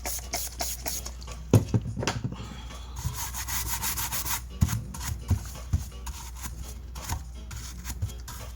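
A brush scrubbing a circuit board to clean off flux residue, in quick back-and-forth strokes with a longer smooth rub about three seconds in, over a steady low hum.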